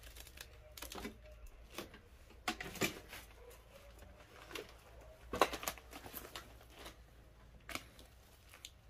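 Faint, irregular footsteps crunching and scuffing on a straw- and debris-littered barn floor, loudest about three seconds and five and a half seconds in.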